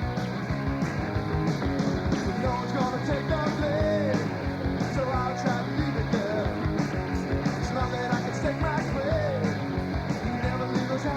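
Rock music with a steady driving beat and distorted guitars, with a singing voice coming in from about two seconds in.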